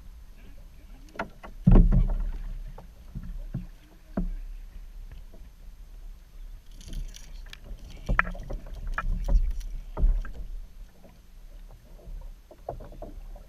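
Water lapping against a plastic kayak hull, with irregular knocks and thumps on the hull as a fish is reeled in and landed; the loudest thump comes about two seconds in, and a short hiss about seven seconds in.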